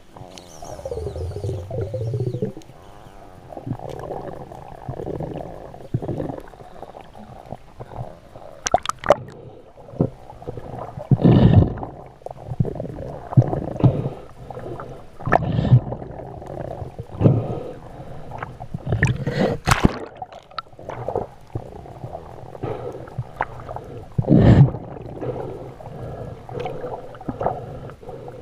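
Water gurgling and sloshing around a spearfisher's underwater camera, in uneven bursts every second or two.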